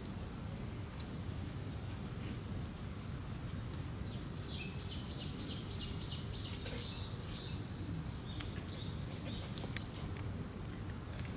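Steady low outdoor background noise; from about four seconds in, a bird calls a quick run of short repeated high notes for about five seconds, the first ones evenly spaced, then more irregular.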